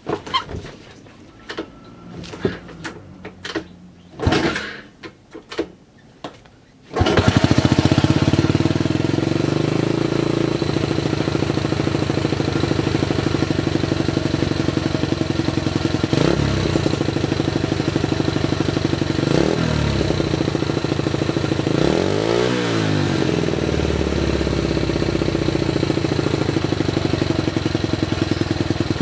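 A few light knocks and clicks. Then, from about seven seconds in, the restored Honda Super Cub C90's single-cylinder four-stroke engine runs steadily at idle through its aftermarket muffler, blipped up and back down a few times.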